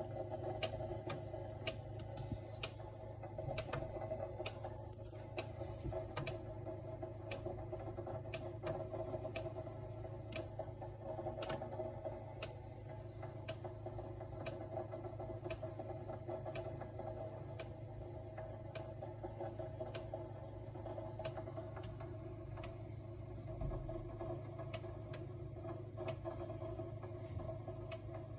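Samsung RT32 refrigerator running with a steady hum and irregular sharp clicks or ticks about every half second to a second: the obvious abnormal noise the owner is recording.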